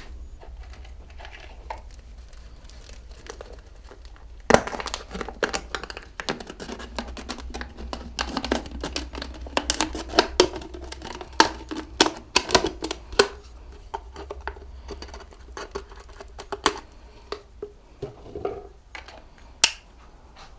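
Irregular sharp clicks and clinks of small metal parts being handled over a low steady hum, starting about four seconds in and thinning out near the end, as greased steering-head bearings are fitted.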